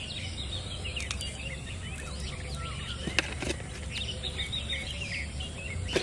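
Small birds chirping and calling busily over a low steady rumble, broken by a few sharp clicks, the loudest about three seconds in.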